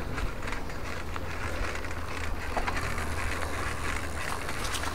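Bicycle rolling along an asphalt path: tyre noise and small scattered rattling clicks over a steady low rumble.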